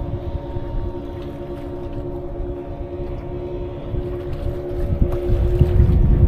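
A boat's motor running steadily with a constant drone, while wind buffets the microphone and grows louder about five seconds in.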